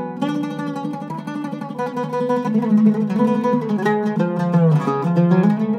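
Solo Iraqi-style oud with a cedar soundboard and French mahogany back, played with a plectrum: a continuous run of quick plucked notes with fast repeated tremolo strokes on the lower strings.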